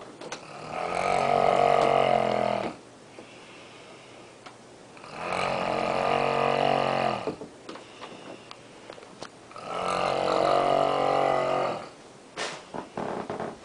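A woman snoring loudly in her sleep: three long, pitched snores, each about two seconds long and coming about every four and a half seconds. Quieter breathing and a few small clicks fall between them.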